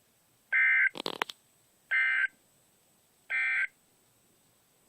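Emergency Alert System end-of-message data bursts from a NOAA Weather Radio broadcast: three short, identical buzzy tone bursts about a second and a half apart, signalling that the flood warning message has ended. A few clicks follow the first burst.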